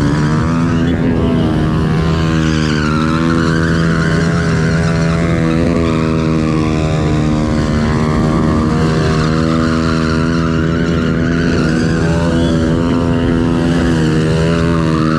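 Motorcycle engine running steadily under way, its pitch rising and falling a little with the throttle.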